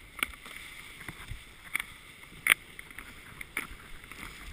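Cascade 350 rescue toboggan sliding over snow with a steady hiss, and a few sharp knocks and clacks at irregular intervals as it is towed. The loudest knock comes about halfway through.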